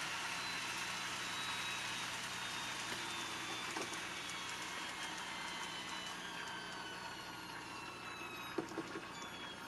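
Shinkansen-style VVVF inverter and traction motor sound effect played back through the converted controller's mp3 sound module: several whining tones slowly fall in pitch over a steady running hiss that fades gradually, as the simulated train slows. A click comes about four seconds in, and two sharp clicks near the end.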